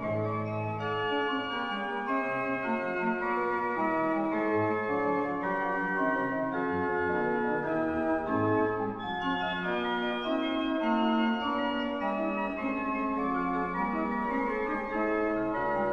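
Slow instrumental background music of long held notes and chords.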